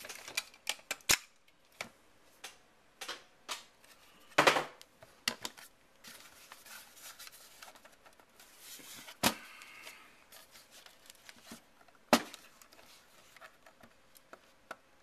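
Hand tools clicking, tapping and scraping against the plastic case of an old Apple floppy disk drive as it is pried at, in scattered irregular clicks with louder knocks about four and a half, nine and twelve seconds in.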